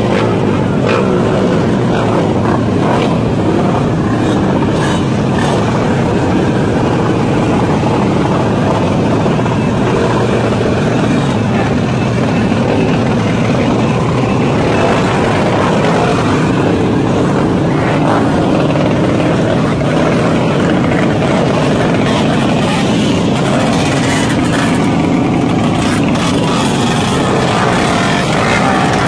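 Many small motorcycle engines running and revving together in a dense crowd of underbone bikes, a loud, steady din with voices mixed in.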